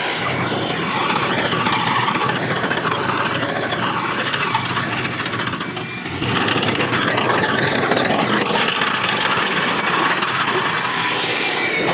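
Heavy earthmoving machinery working: an engine running under a dense mechanical rattle, dipping briefly about halfway and then picking up again.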